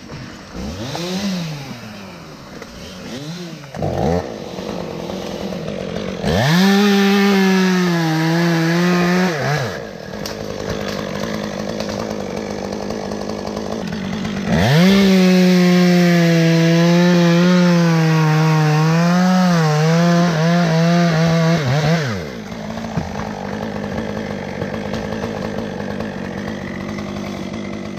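Two-stroke chainsaw idling and blipped a few times, then run at full throttle twice, once briefly and once for about seven seconds, cutting dead wood out of the tree. Its pitch wavers and sags under load, and it drops back to idle after each cut.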